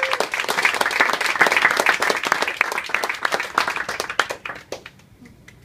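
A small group of people applauding, the claps thick at first, then thinning out and stopping about five seconds in.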